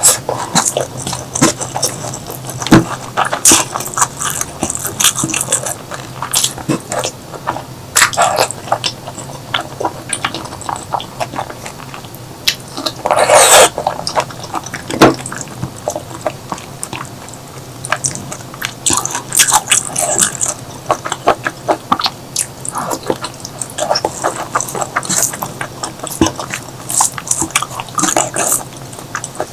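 Close-miked eating sounds: a person chewing and biting, with many short, irregular mouth clicks, and one louder, longer bite about 13 seconds in.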